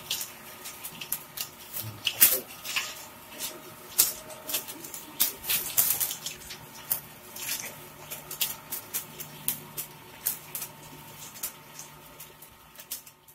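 Two-shaft shredder shredding plastic medical waste: a steady motor hum under dense, irregular crackling and snapping as the plastic is torn and the pieces drop onto the pile. The crackling thins out near the end.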